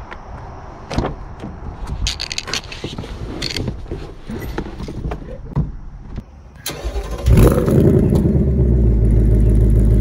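Clicks and knocks of someone getting into a Ford Mustang GT (S650), with a sharp thump a little before the seven-second mark. Then the car's 5.0-litre V8 starts with a brief loud flare and settles into a loud, steady idle.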